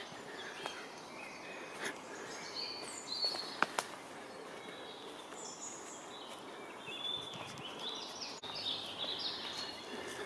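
Woodland birdsong: several small birds chirping and singing in short high phrases throughout, over a steady outdoor hiss, with a few sharp clicks about two and four seconds in.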